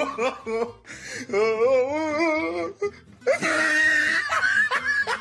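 A woman's voice: a long, high, wavering whine, then a loud shrieking, wheezy laugh about three seconds in.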